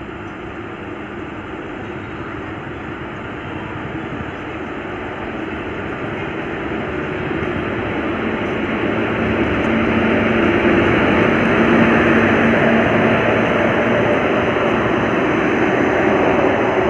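An express train hauled by an electric locomotive approaches and runs past, its wheels and coaches rolling along the rails. The rumble grows steadily louder over the first ten seconds and then holds. A steady low hum joins it as the locomotive draws level.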